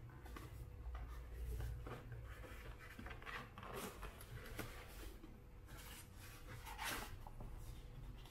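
A cardboard box being opened by hand and its paper manual pulled out: irregular rustling and scraping of card and paper, loudest about seven seconds in.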